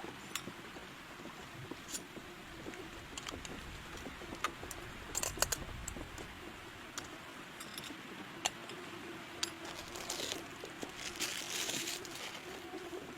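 Scattered light ticks and short crinkling rustles, a few clustered bursts among them, over a low steady background.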